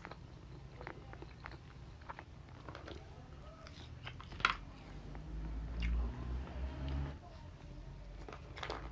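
Close-miked mouth sounds of a person eating: biting and chewing with small wet clicks, and one sharper crunch about halfway through.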